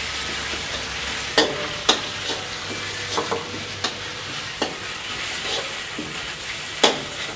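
Sliced pork sizzling in hot oil in an aluminium wok as it is stir-fried with a metal ladle. The ladle clinks and scrapes against the pan several times, the sharpest knocks about a second and a half in, at two seconds, and near the end.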